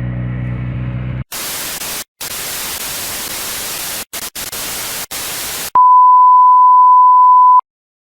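A motorcycle engine running for about a second, cut off abruptly by loud television-style white-noise static that drops out briefly a few times. About six seconds in, the static gives way to a steady high-pitched test-tone beep lasting about two seconds that cuts off abruptly.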